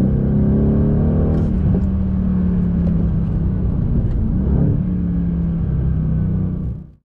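Mercedes-AMG C63 S's 4.0-litre twin-turbo V8, heard from inside the cabin, running hard at around 4,000 rpm with a fairly steady pitch. It cuts off abruptly near the end.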